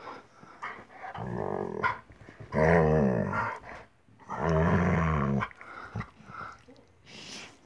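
A dog growling playfully while its chin and face are rubbed: three drawn-out, wavering growls of about a second each, the second and third loudest.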